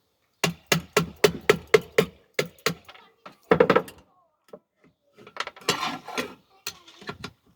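Metal pot parts clinking and knocking: a quick run of about eight sharp knocks in the first two seconds, then scattered clinks and knocks.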